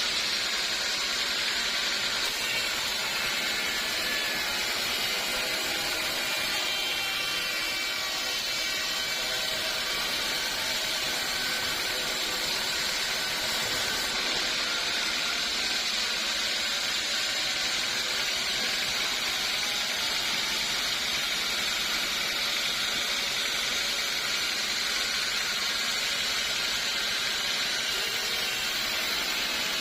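Sawmill saw cutting through old teak wood, a steady, even high-pitched cutting noise that does not pause.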